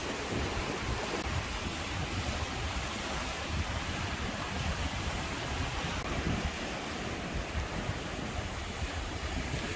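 Sea wind buffeting the microphone in gusts over the steady wash of waves breaking on a rocky shore.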